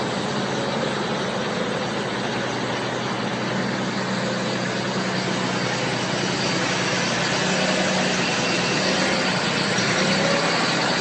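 Forklift engine running steadily at low revs, with an even mechanical drone throughout.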